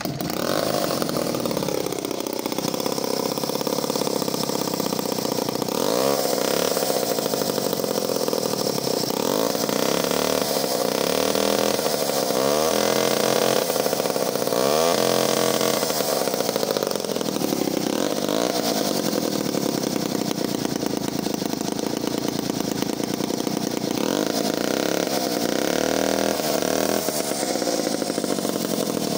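Clinton D55 vintage 73cc two-stroke chainsaw running just after a choked start, idling and revved up several times, its pitch rising and falling with each blip of the throttle. The owner says its fuelling still needs sorting out, with the Carter carburettor due for a service.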